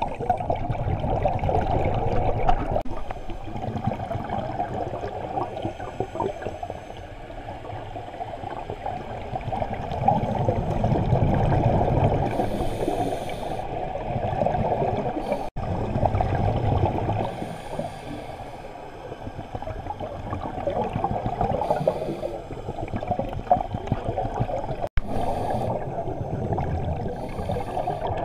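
Scuba regulator exhaust bubbles gurgling underwater, heard muffled, swelling and fading every few seconds with the divers' breaths. The sound cuts out for an instant twice.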